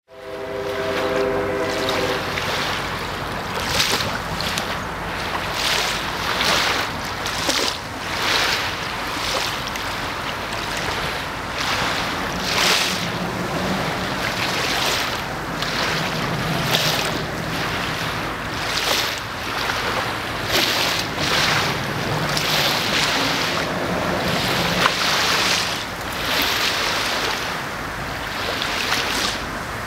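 River water lapping and slapping in irregular small splashes, with wind on the microphone.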